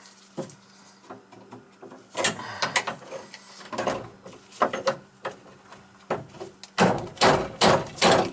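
Hand tools working on overhead copper water pipe and brass fittings: irregular metal scraping and clanking in bursts, loudest in a run of strokes near the end, over a steady low hum.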